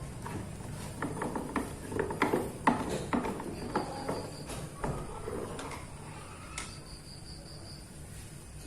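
Irregular clicks and knocks of hand tools and metal parts being handled while a washing machine is put back together, thinning out about five seconds in, over a steady low hum.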